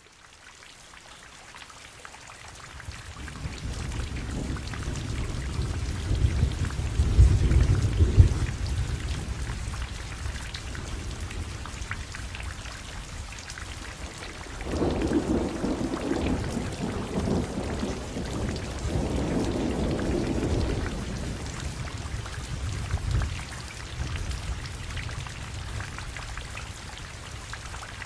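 Steady rain falling, with rolling thunder. A long low rumble swells a few seconds in, and a second rolls through about halfway.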